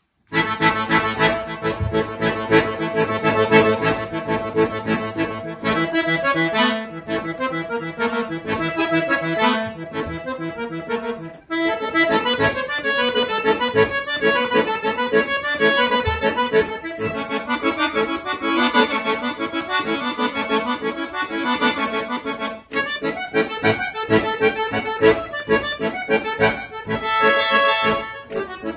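Solo accordion playing a piece, starting abruptly with long held chords, then moving into quicker runs of notes. There are short breaks about eleven and twenty-three seconds in.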